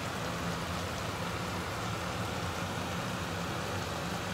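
Spinach and onions cooking in a steel pot, a steady sizzling, simmering hiss, with a low steady hum underneath.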